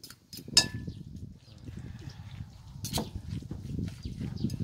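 Two metal spoons tossing and stirring moist minced meat salad (laap) in a ceramic bowl, a soft wet squelching, with sharp clinks of spoon on bowl about half a second in and again about three seconds in.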